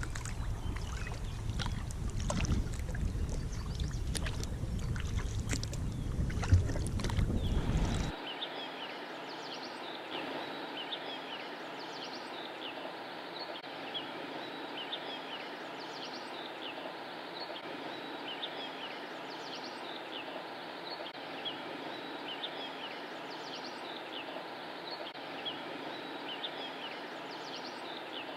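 Kayak paddling on a river: paddle and water noise with wind rumbling on the microphone. About eight seconds in, the sound cuts abruptly to a quieter steady hiss with short high chirps repeating about once a second.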